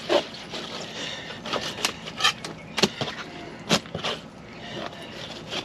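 Fillet knife working through a large redfish on a towel-covered table: irregular crisp clicks and short scrapes, about eight of them, over a faint steady hiss.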